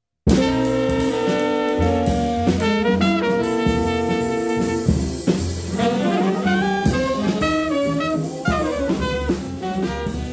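Music over the opening titles, starting abruptly after a moment of silence, with held notes and changing chords.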